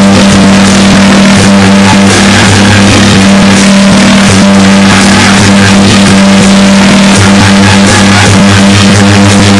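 Very loud, overloaded festival procession music: steady held tones under a constant clatter of percussion strikes.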